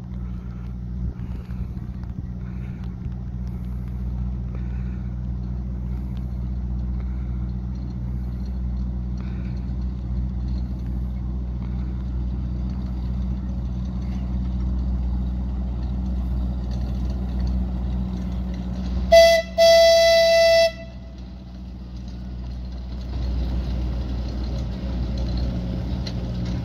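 Small narrow-gauge railway locomotive running with a steady low drone as the train approaches. About nineteen seconds in, its horn gives a very short toot and then a loud blast of about a second and a half.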